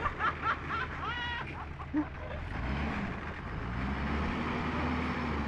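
Off-road SUV's engine revving under load as it works through a deep mud hole, the pitch climbing a little over two seconds in and then holding. Short voices come in the first second or so.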